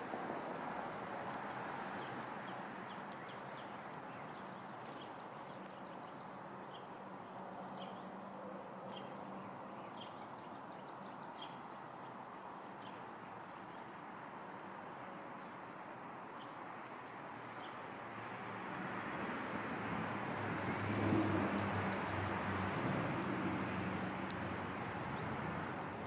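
Outdoor ambience: a steady low hum of distant traffic that swells louder for several seconds about two-thirds of the way through, with short faint high bird chirps repeating through the first half and a few sharp ticks.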